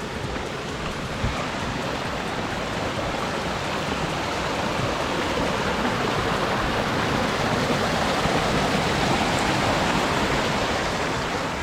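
Rushing water of a mountain stream, a steady hiss that grows louder through the middle and eases slightly near the end.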